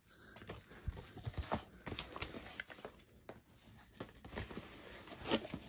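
Cardboard shipping box being opened and handled: irregular light taps, scrapes and rustles of cardboard and packing, with one louder knock near the end.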